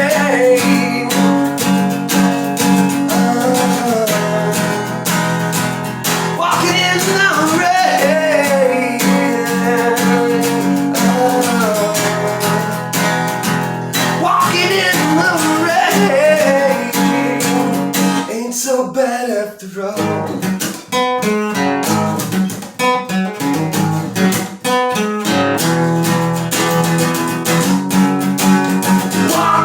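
Acoustic guitar strummed under a wandering melody line in an instrumental passage of a song. About 18 seconds in, the strumming stops for a moment, single plucked notes follow for several seconds, and then the strumming comes back.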